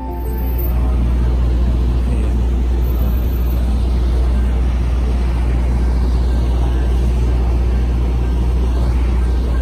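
Steady low rumble of road traffic and city street noise.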